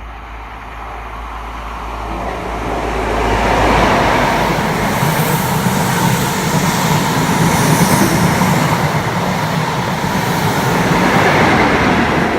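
High Speed Train with Class 43 diesel power cars passing through the station without stopping: it grows louder over the first few seconds, then the power car's engine hum and the wheel and coach rumble run on steadily and loudly.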